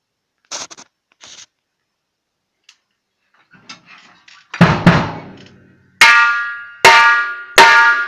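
Drum kit being played: a few soft taps, then a heavy hit about halfway through, followed by three loud crashes under a second apart, each left ringing.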